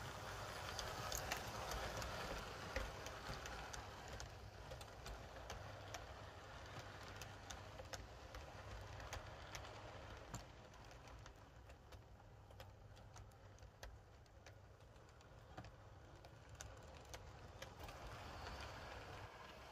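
Hornby OO gauge model train running past on a layout: the wheels click over the rail joints many times, irregularly, over a steady low hum. It is louder in the first few seconds and again near the end.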